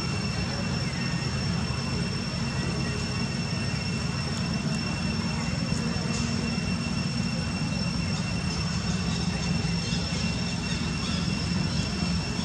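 Steady low rumble with a thin, constant high-pitched whine over it.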